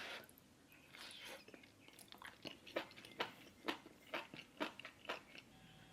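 Close-miked chewing of food: faint wet mouth clicks and soft crunches, coming about twice a second from about two seconds in.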